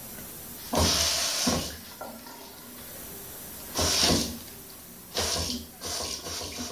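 Bidet faucet turned on and off in about four short spurts, water splashing into the ceramic bowl for under a second each time.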